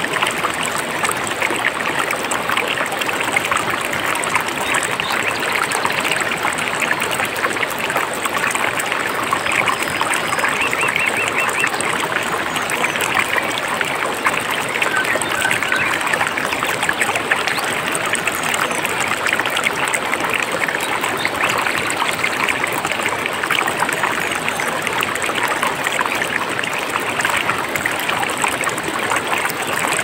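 Mountain stream running over rocks: a steady, even rush and trickle of water. A few faint bird chirps come through about ten and fifteen seconds in.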